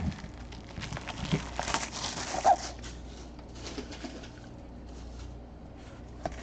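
Plastic shrink wrap being torn and peeled off a sealed trading card box, crinkling and rustling in irregular bursts with scattered small clicks. The crinkling is busiest between about one and a half and three seconds in.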